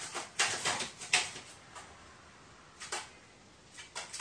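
Clicks and rattles of a wooden interior door and its lever-handle latch, in short clusters: a quick run of knocks in the first second, the loudest just after it, then single rattles near three seconds and near the end.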